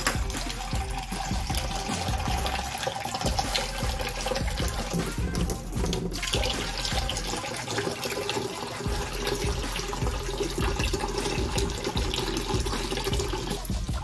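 Kitchen tap running steadily into a plastic bowl in a stainless steel sink, filling it with water, with background music playing.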